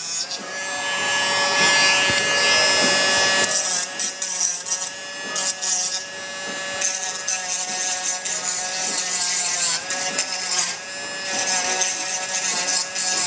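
Dremel 8050 Micro cordless rotary tool running with a steady whine, its bit grinding away PLA plastic on a 3D print. The grinding comes and goes in several passes as the bit is pressed on and eased off.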